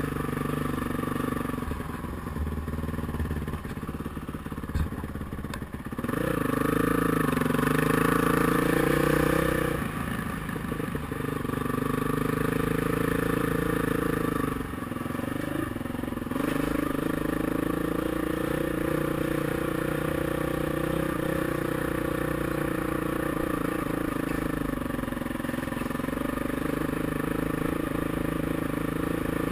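Dirt bike engine running at low trail speed. It revs up about six seconds in and holds higher for a few seconds, eases back off, then runs steadily.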